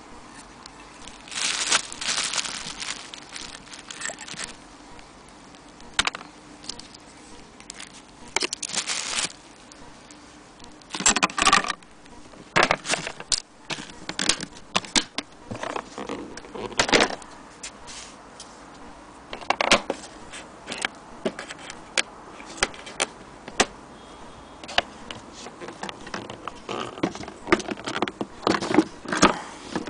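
Packing and handling noises: bubble wrap crinkling in a few longer stretches, with many short clicks and knocks from the sewing machine's black carrying case and its metal latches, coming thicker near the end.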